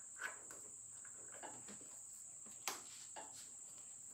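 Faint metallic clicks and taps as a twist drill bit is slid into a mill-drill's chuck and the chuck is turned tight by hand, the sharpest click about two-thirds of the way through. A steady, thin, high-pitched background tone runs underneath.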